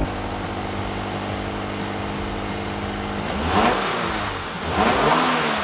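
Stock exhaust of a Toyota 86's flat-four engine idling steadily, then revved twice, the pitch rising and falling with each blip.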